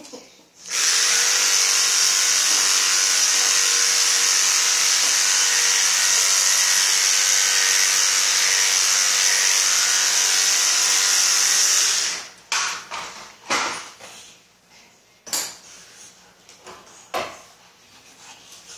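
Electric pet clippers running steadily for about eleven seconds, a high hiss over a faint motor hum, then switched off. A few light clicks follow.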